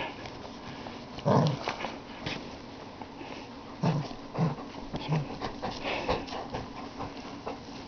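Wolf-hybrid puppy play-wrestling, making several short, low vocal sounds a second or so apart, over rustling and small clicks of fur and bedding.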